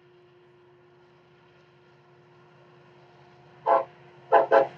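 Union Pacific diesel freight locomotives running as they approach, a low steady rumble with a faint hum that slowly grows louder. Near the end, three short, very loud sounds cut through, the last two close together.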